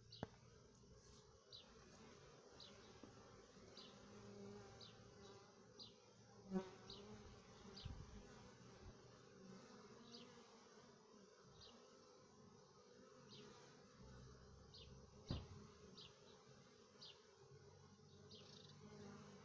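Faint steady buzzing of honeybees flying around a hive entrance. Short high chirps repeat about once a second behind it, and there are two brief knocks about six and fifteen seconds in.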